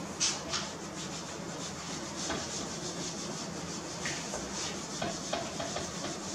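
Whiteboard eraser wiping marker off a whiteboard in a series of quick rubbing strokes, the first the loudest.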